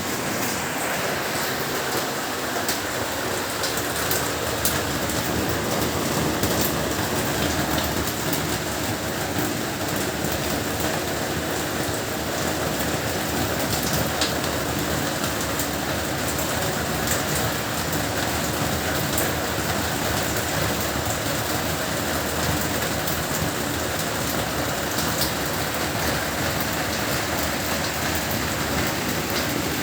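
Heavy rain falling steadily: a dense, even hiss with scattered drops ticking on surfaces.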